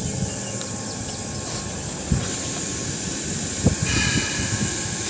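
A steady hissing noise with two short dull knocks, about two seconds in and again near four seconds.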